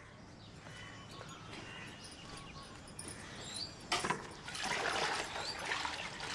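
Water sloshing and splashing as hands work a floor cloth in a plastic bucket of water, starting with a light knock about four seconds in. Faint bird chirps before it.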